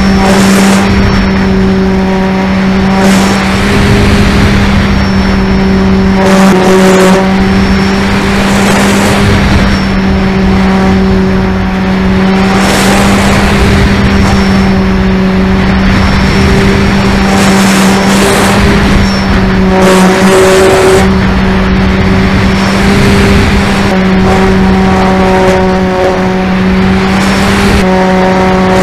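RC model plane's motor and propeller running steadily at a high, even drone, heard from aboard the plane, with wind rushing over the airframe in loud swells every few seconds as it manoeuvres.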